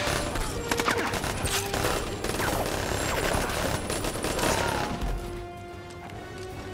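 Rapid, dense gunfire from a film gunfight over background score music. The shooting stops about five seconds in and the music carries on.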